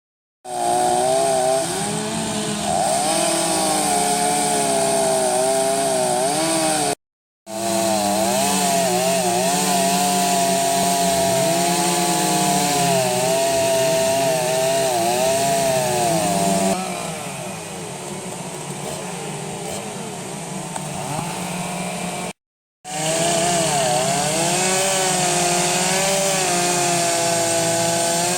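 Chainsaw running and cutting into redwood, its pitch rising and dipping as the chain bites and frees in the wood. The sound breaks off abruptly into silence twice, and runs quieter for a few seconds before the second break.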